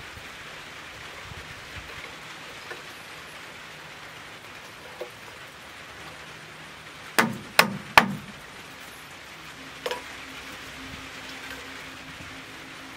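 A steady hiss, with three sharp knocks in quick succession about seven seconds in and one more about two seconds later, made while a small fire in a bucket stove is tended by hand.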